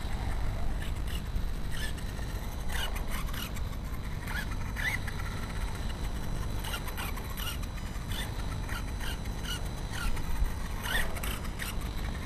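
Brushless electric motor of a 1/8-scale VRX-1 RC truggy giving many short rising whines as it accelerates in spurts, over a steady low rumble.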